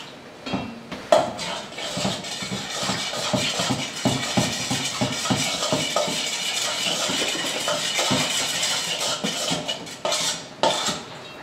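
A utensil stirring and scraping in a bowl, rapid clicks and scrapes against the sides, as water is mixed into glue for homemade slime.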